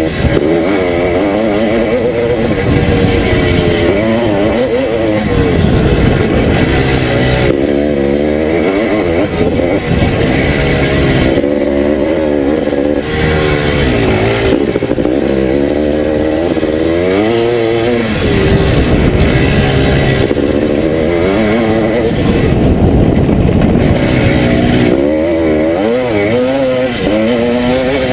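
1981 Can-Am MX-6B 400's two-stroke single-cylinder engine under hard riding, its pitch rising and falling again and again as the throttle is opened and shut and the gears are worked.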